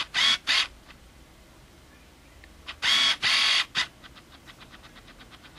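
Canon EF-S 18-55 mm IS kit lens autofocus motor whirring in bursts as the camera hunts for focus: two quick buzzes at the start, a longer one about three seconds in, then a run of faint rapid ticks, about ten a second. This is the focusing noise that the camera's own microphone picks up during video.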